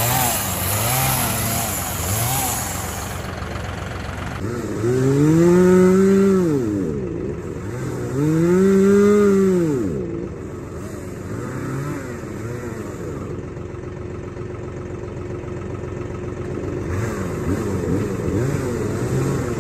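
Chainsaw's two-stroke engine blipped in short revs about once a second, then revved up and back down twice in long swells, then running lower and steady.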